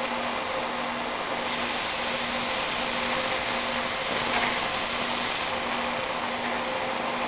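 VFS7300A vertical powder packaging machine running: a steady hiss with a low hum that cuts in and out in an even rhythm.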